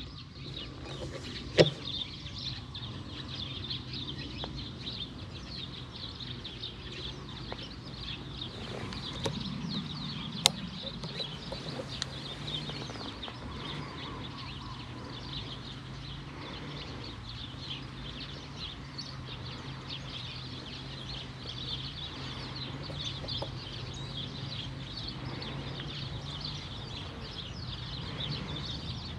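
Birds calling in a continuous chorus of short chirps, over a steady low hum. Two sharp clicks stand out, about a second and a half in and again about ten seconds in.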